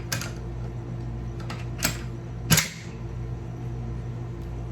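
Metal clicks and clacks of a Zastava ZPAP AK-pattern rifle's parts being fitted into the receiver during reassembly: three sharp clicks, the last and loudest about two and a half seconds in with a dull knock, over a steady low hum.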